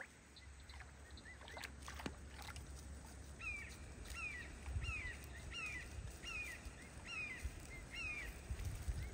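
A bird whistles the same downward-slurred note about eight times in a row, a bit under two a second, starting a few seconds in. Light splashing of water comes from birds paddling in a shallow pond, with a low steady rumble underneath.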